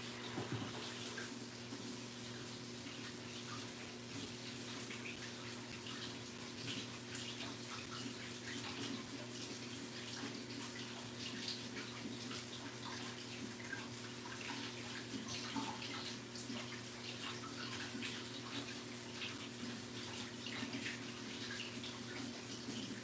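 Kitchen tap running steadily into a sink during dishwashing, with scattered small clinks and splashes.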